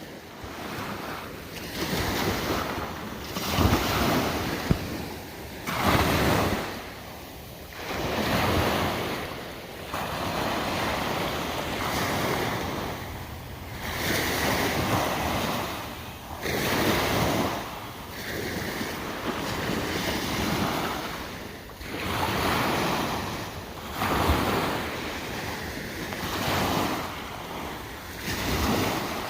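Ocean surf: waves breaking and washing in, the noise swelling and falling every two to three seconds.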